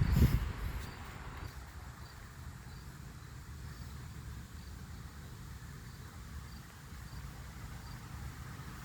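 Steady rain outdoors over a low rumble, with a loud low thump on the microphone just at the start. A cricket chirps faintly and regularly, about every two-thirds of a second.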